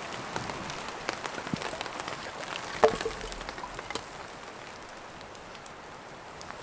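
Steady hiss and patter of light rain, with scattered small ticks and crackles from a damp, smoky campfire. A single sharp wooden knock about three seconds in, as firewood is handled at the fire, is the loudest sound.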